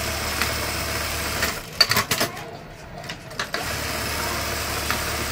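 Juki industrial buttonhole machine stitching a buttonhole with a steady, smooth hum. It stops after about a second and a half with a few sharp clacks, then starts stitching again a couple of seconds later.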